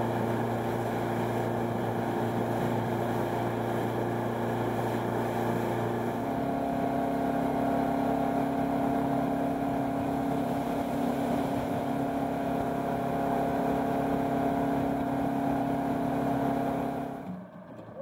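Motorboat engine running steadily at speed, with water rushing along the hull. Its note shifts about six seconds in, and near the end it is throttled back and the sound drops off sharply.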